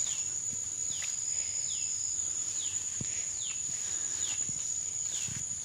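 A steady high-pitched insect trill, such as crickets, with a bird's short call falling in pitch repeated about once a second over it.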